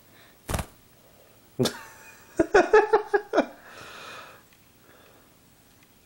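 A single thump on the camera about half a second in, then a couple of seconds of a person's wordless vocal sounds, ending in a breathy hiss.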